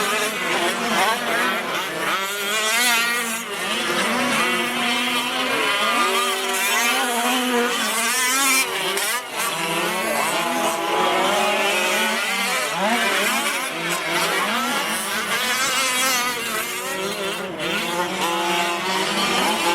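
Several 1/5-scale gas-powered RC race trucks, Losi 5ive-Ts among them, with their small two-stroke engines revving and whining together, pitches rising and falling quickly as the trucks accelerate and back off around the track.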